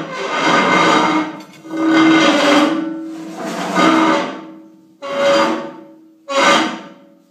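A long steel bar is rammed into a swather header auger's shaft end, striking metal inside. There are about five heavy blows, each ringing on like a bell for about a second.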